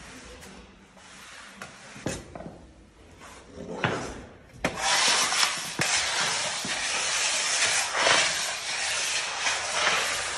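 A steel spreader scraping and rubbing over wooden parquet as oil is spread across it, loud and continuous from about halfway in; the quieter first half has a few sharp knocks.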